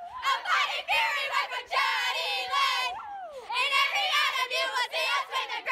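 A group of girls singing and shouting together in high voices, in several phrases, with a short pause about three seconds in.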